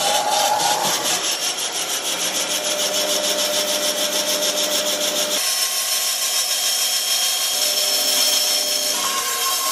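Bandsaw running and cutting through a sheet of plywood, the blade hissing steadily through the wood over a motor hum. About five and a half seconds in, the lower hum drops out abruptly while the cutting noise carries on.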